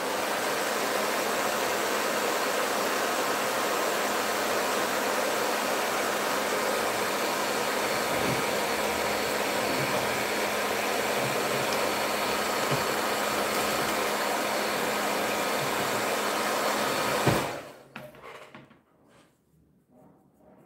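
Handheld hair dryer blowing steadily over wet paint to dry it, switched off about three-quarters of the way in.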